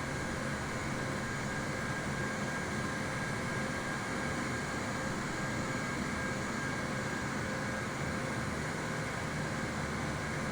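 Jet airliner's engines running steadily with a faint whine, before takeoff, with no spool-up.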